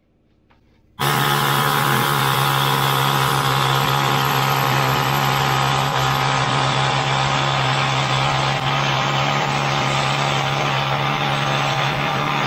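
Pneumatic needle scaler hammering on the cast iron column of a Bridgeport milling machine, stripping the old paint. It starts about a second in and runs steadily and loudly.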